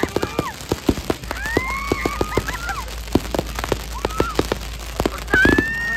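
Fireworks crackling and popping overhead in rapid bursts, with a loud burst about five and a half seconds in. Several people let out high-pitched, drawn-out shrieks, screaming because fireworks ash keeps falling on their heads.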